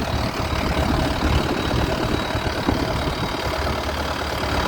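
Boat engine running steadily, with a constant low rumble.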